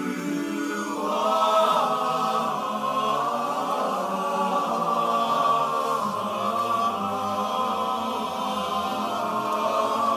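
Men's barbershop chorus singing a cappella in close four-part harmony, holding chords that swell louder about a second in, with a low bass line entering about six seconds in.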